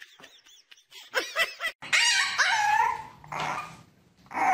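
A dog vocalizing: a few short sounds about a second in, then a louder run of drawn-out sounds that slide up and down in pitch for about a second, fading out before the end.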